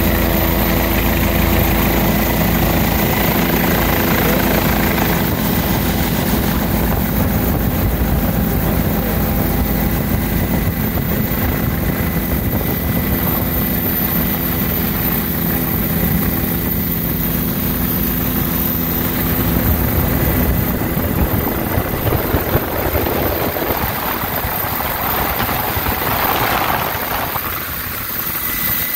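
Helicopter engine and rotor running steadily: a loud, continuous drone with several held tones.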